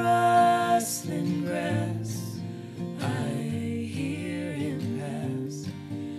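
A man and a woman singing a hymn together, accompanied by a strummed Taylor acoustic guitar.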